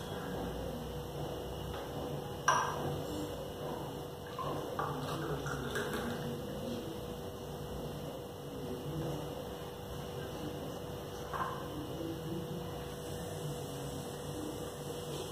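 Steel pot clinking sharply against steel tumblers twice, about two and a half seconds in and again near eleven seconds, as mango juice is poured into them, over a steady electrical hum.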